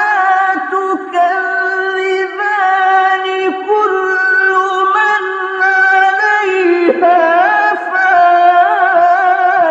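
A single high voice chanting in Arabic melismatic style, holding long notes and winding ornaments around them with few breaks for breath.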